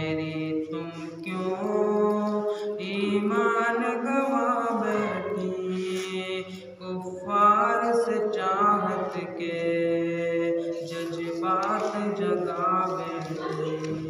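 A young man's solo voice singing an Urdu devotional nazm into a microphone, in long held notes that glide and waver between phrases.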